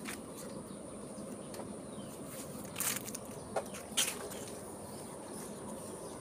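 Outdoor garden ambience: a steady background noise with a thin, steady high-pitched tone, broken by a few brief sharp, scratchy sounds around three to four seconds in.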